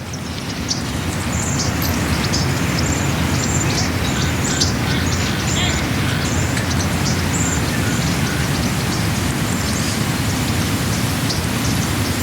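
Small FPV drone flying: a steady loud rushing noise with a low rumble underneath, and short high squeaks scattered through it.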